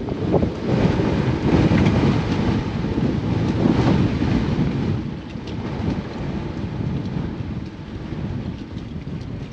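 Strong, gusty wind blasting across the microphone, surging and easing, loudest in the first half and dropping back somewhat after about five seconds.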